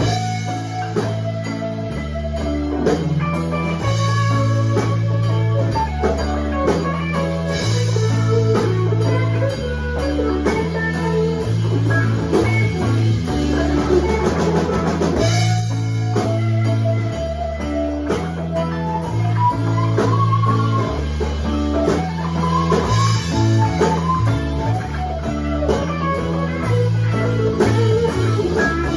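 Live band playing: two electric guitars over electric bass and a drum kit, the bass moving between held notes under a steady drum beat.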